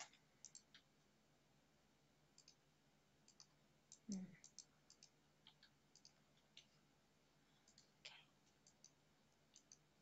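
Faint computer mouse clicks, many of them in quick pairs, scattered through near silence. A brief low murmur comes about four seconds in.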